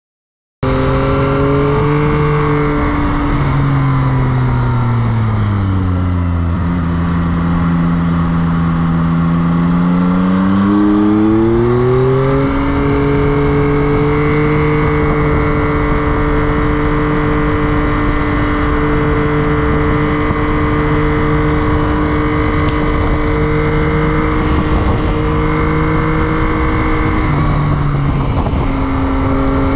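Motorcycle engine being ridden, starting about half a second in: the revs fall for several seconds, stay low, then climb again as it accelerates. It then holds steady revs for a long stretch, with a short dip near the end.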